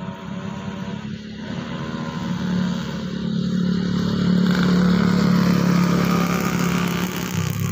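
A motorcycle engine running as it passes on the road, growing louder to a peak about four to six seconds in, then easing off slightly.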